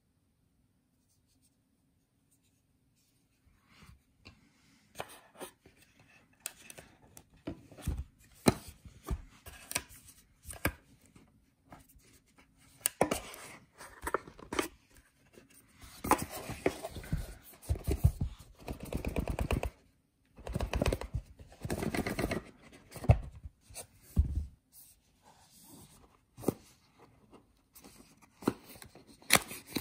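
Close handling noise from hands on a small camera and a white cardboard box: irregular rubbing, scraping and clicking. It is nearly silent for the first few seconds and densest in the middle.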